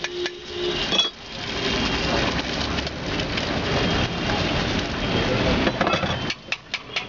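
Eggs frying in hot oil in a metal pan, a steady sizzle, with a metal utensil clinking against the pan several times near the end.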